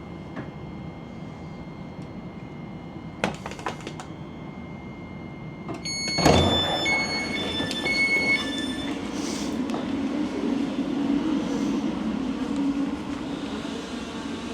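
Commuter train's passenger doors opening at a station: a few clicks, then a clunk and a run of stepped electronic beeps as the doors slide open, followed by a steady hum.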